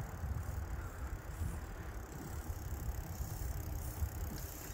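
Bicycle riding along a bumpy road: an uneven low rumble of tyres and jolting, steady throughout.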